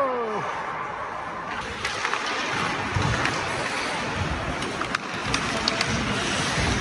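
Ice hockey play: a steady scraping hiss of skate blades on the ice, with a few sharp clicks of sticks striking the puck.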